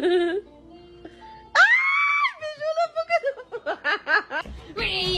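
Music, with a high held note about a second and a half in, followed by a run of short rhythmic notes; a fuller passage starts near the end.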